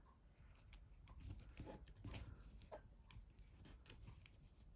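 Near silence, with faint scattered clicks and light rubbing from small phone parts being handled during disassembly.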